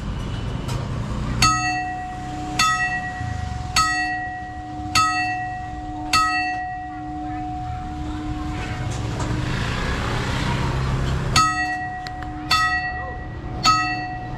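Railway level-crossing warning bell, an electronic chime pitched on E-flat and G, striking about once every 1.2 seconds to warn that a train is coming. It rings five times, breaks off for several seconds while a vehicle passes, then resumes with three more strokes over steady road traffic rumble.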